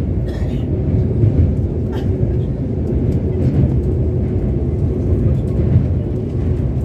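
Vande Bharat Express train running at about 130 km/h over a steel truss bridge, heard from inside the coach: a steady low rumble of wheels on rails, with a few faint clicks.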